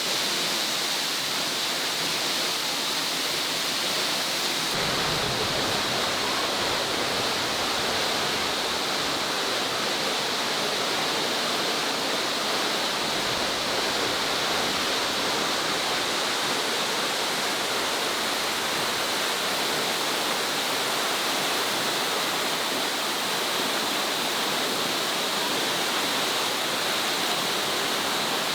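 Steady rushing roar of a waterfall, pouring water with no let-up. About five seconds in the sound shifts abruptly, becoming fuller and deeper.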